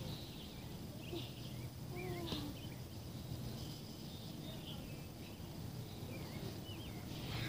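Faint outdoor ambience: small birds chirp briefly now and then over a low, steady hum.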